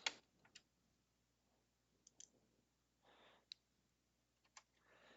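Faint, scattered clicks of a screwdriver and a screw being fastened in the synth's metal chassis, with a couple of brief soft rustles in between.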